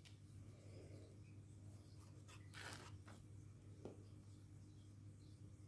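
Near silence: faint rustling of craft paper being handled, with a single light tap a little before the four-second mark, over a low steady hum.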